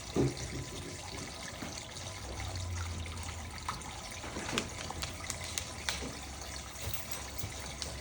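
Water trickling and splashing in a toy sink as a cockatoo plays in it, with a sharp knock just after the start, scattered light clicks, and a low hum from about two seconds in.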